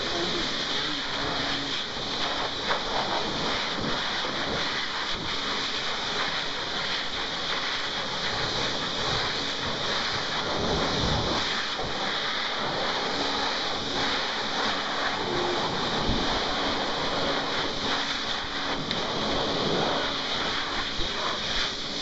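Handheld hairdryer running steadily: a continuous rush of blown air with a faint low motor hum, blowing close to the microphone.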